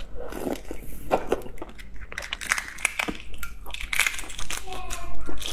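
Eggshell cracking and crackling as it is peeled off an egg by hand, with close-up mouth sounds of biting and chewing: a busy run of small crackles and clicks.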